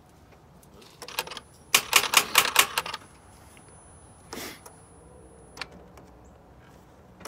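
A pickup's starter solenoid clicking in quick runs as the key is turned, with the built 5.3 V8 not cranking, followed later by a single knock. The owners are pretty sure the cause is the main ground wire left unhooked.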